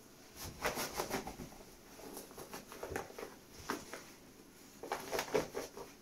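A white velcro straitjacket rustling and crackling in bursts as it is pulled on over the arms and fastened at the back. The loudest bursts come near the start and again about five seconds in.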